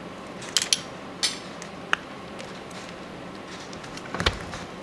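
Small metal clicks of a screwdriver on the click-spring retaining screw and metal parts of a Daiwa BG40H reel's side plate as the screw is tightened. There are a few sharp clicks in the first two seconds, one with a brief ring, then a short cluster of clicks and a duller knock about four seconds in.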